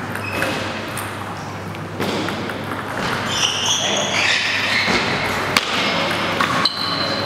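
Table tennis ball knocking on bat and table, with a sharp hit about five and a half seconds in, over background chatter and a few high squeaks.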